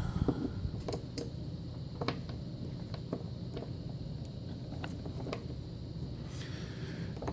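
Scattered small metallic clicks and taps as a Phillips screwdriver works a threadlocked screw out of an Abus 72/40 padlock, over a steady low hum.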